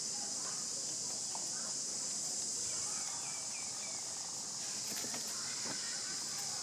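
Steady high-pitched drone of insects, with scattered faint chirps and a quick run of four or five short falling chirps about three seconds in.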